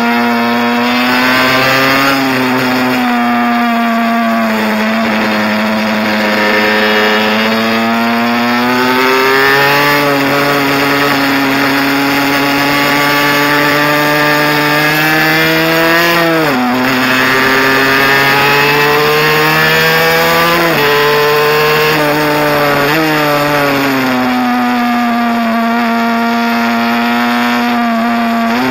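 Mini bike engine running hard at high revs, heard close up from on the bike, its pitch climbing and falling with the throttle through the laps, with a sudden drop about 16 seconds in and a sharp jump back up about 21 seconds in.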